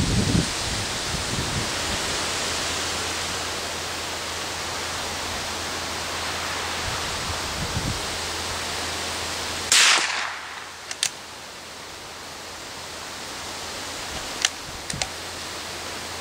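Steady wind noise on the microphone, then a single sharp crack of a TOZ-16 .22 rimfire rifle firing, about ten seconds in. A few faint clicks follow near the end.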